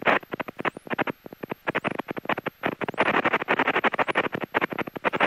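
Crackling, stuttering static on the aircraft's radio and intercom audio: rapid, irregular crackles that cut in and out, with faint rising squeals about every half second.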